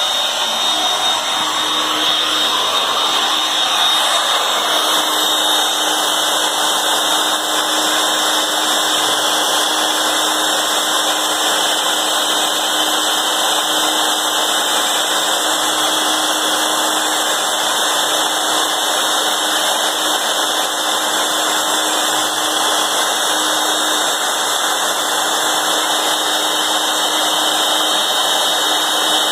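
Porter Cable 7518 router motor running steadily at high speed with a steady high whine, as a V-bit engraves a design into a sheet of MDF on the CNC router.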